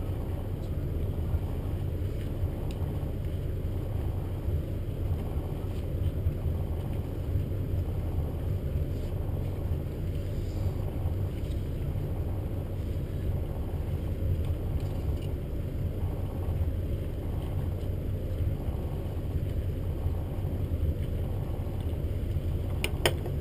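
Cabin cruiser's engine idling, a steady low rumble, with a couple of sharp clicks near the end.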